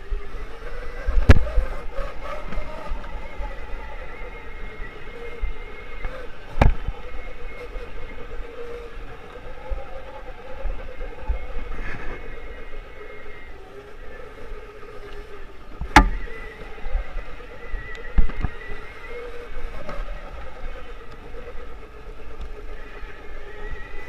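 Electric motor of a custom 3000 W, 72 V electric Puch Maxi moped whining under way on a dirt trail, its pitch rising and falling with speed, over a low rumble. Four sharp knocks stand out, about a second in, near seven seconds, and twice around sixteen to eighteen seconds.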